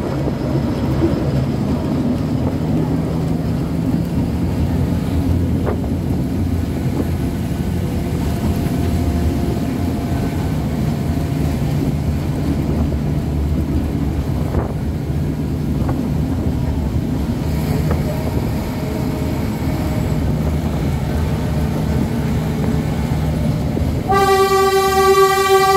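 Narrow-gauge forest railway train running with a steady low rumble, a few light clicks over the track. Near the end its horn sounds one long note of about a second and a half.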